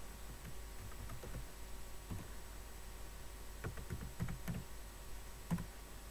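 Computer keyboard keystrokes in short runs as a login name and password are typed and entered. A few light taps come first, then a key press about two seconds in, a quick run around four seconds, and one loudest keystroke near the end, over a steady low hum.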